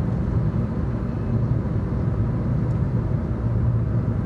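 Maruti Vitara Brezza cruising steadily at about 60 km/h and just under 2,000 rpm, heard from inside the cabin: a steady low engine hum mixed with road and tyre noise.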